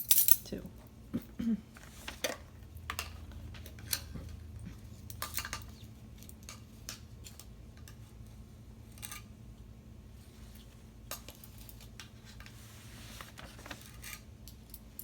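Measuring spoons and kitchen utensils clicking and clinking against bowls and containers in scattered taps, as baking powder is measured out.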